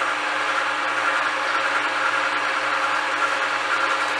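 Electric kitchen mixer running steadily at speed with an even motor hum, beating the cookie batter until fluffy.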